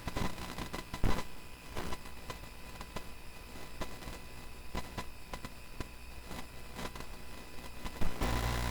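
Irregular light clicks and taps, with a louder knock about a second in and another near the end.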